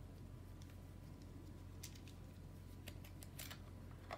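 A few faint, scattered clicks and taps of a plastic hub cap being handled and seated on an Uppababy Vista stroller's rear wheel hub, over a low steady hum.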